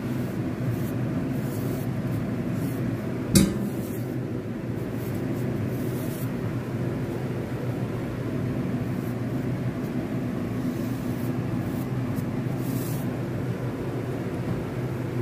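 A steady low machine hum, with one sharp knock or click a little over three seconds in.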